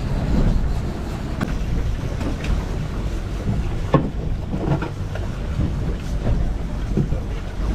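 Steady low rumble of a fishing boat under way, with wind buffeting the microphone. A few short knocks sound over it, the sharpest about four seconds in.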